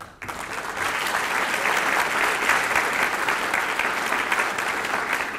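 Audience applauding, starting abruptly and tapering off near the end.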